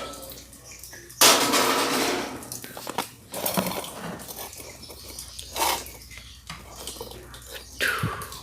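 Clattering and knocking as a top-loading washing machine is handled and tipped onto its side, with a loud scraping rush about a second in and scattered knocks after.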